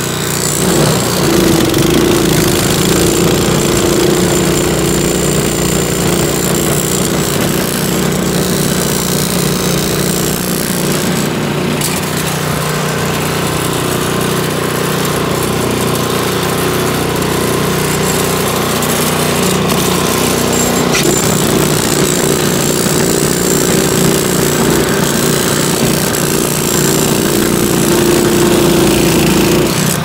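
Toro 621 QZR single-stage snow blower's four-stroke engine running steadily under load while its auger churns through and throws snow.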